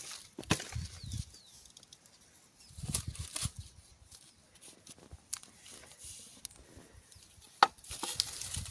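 Wooden offcut blocks knocking and clattering as they are handled and set down among scrap boards, with a rustle of dry leaves between the knocks. A sharp wood-on-wood knock near the end is the loudest.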